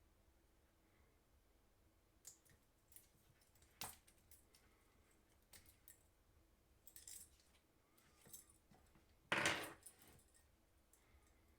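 Scattered light clicks and clinks of a plastic cordless tyre inflator and its hose fittings being handled, with one louder clunk about nine seconds in.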